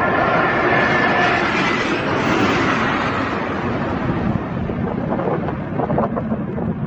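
Jet airliner's engine noise passing and slowly fading, with a high engine whine that dies away in the first second or two. Gusty wind buffets the microphone toward the end.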